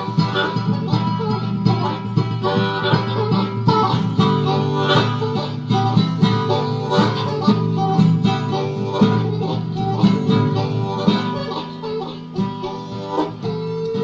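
A country-bluegrass band playing live, an instrumental passage of fast picked strings with a steady beat and no singing.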